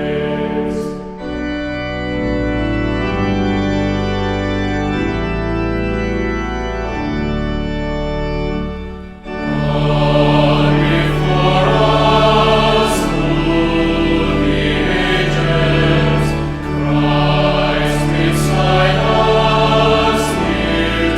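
Church organ playing sustained chords; about nine and a half seconds in, a choir begins singing over the organ and the music grows louder.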